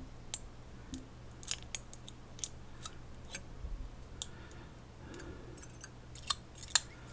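Irregular sharp little clicks and taps of a dimple lock's parts and a lock follower tool being handled while the lock is taken apart, about a dozen in all, with a louder pair near the end.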